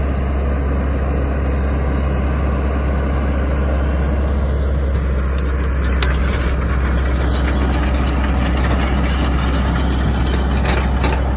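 Diesel engine of a CAT E120B hydraulic excavator running with a steady drone, with a few faint clicks and knocks in the second half.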